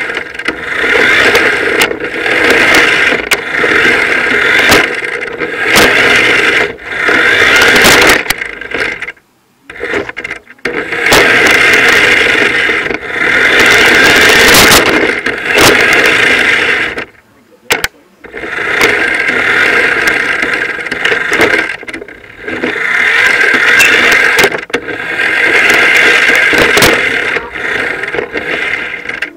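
Radio-controlled car's motor and drivetrain whining in repeated surges as it is driven, with brief stops between, heard up close from a camera riding on the car.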